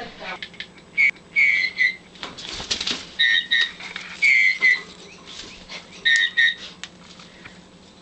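Meyer's parrot giving short, clear whistled chirps, mostly in quick pairs, five times over. There is a brief rustle of feathers or scuffling about two and a half seconds in.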